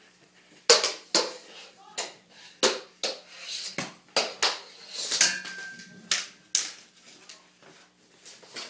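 An irregular series of about a dozen sharp knocks and clicks, one about five seconds in followed by a brief ringing tone, over a faint steady hum.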